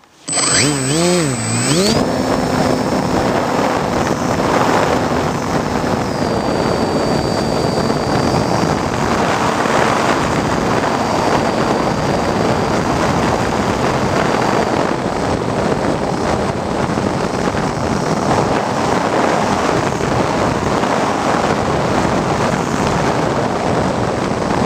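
Model flying wing's propeller motor, heard from the onboard camera: it spins up with a wavering pitch about half a second in, then runs on at a steady faint whine under a loud, even rush of wind over the microphone as the wing flies.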